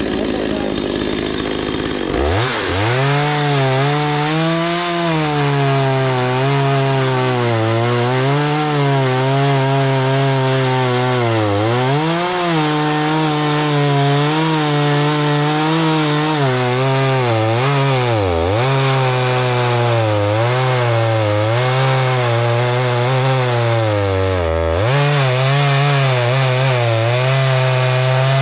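Stihl 023 two-stroke chainsaw at full throttle that drops in pitch as the chain bites into a log about two seconds in, then keeps cutting with the engine speed wavering under load. These are test cuts after a fuel line replacement, to check that it holds its tune.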